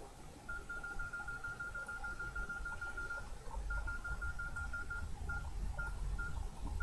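Nokia N72 keypad tones: a fast run of short, same-pitched beeps, about seven a second. Then comes a pause, a shorter run, and a few single beeps about half a second apart near the end.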